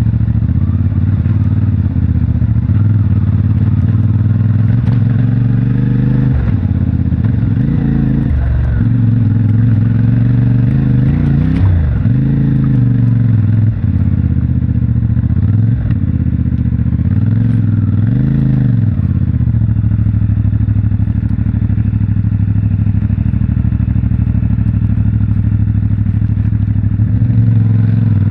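CFMOTO 450MT motorcycle's parallel-twin engine through its stock exhaust, running under way; its pitch drops and rises again several times between about six and nineteen seconds in as the throttle is closed and reopened, then it holds a steady note.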